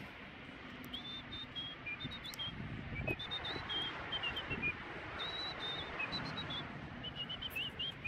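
High, clear whistled notes in short tune-like phrases that step up and down in pitch, with soft rustling and a light knock about three seconds in as a vinyl sticker is smoothed onto the tractor's cab glass.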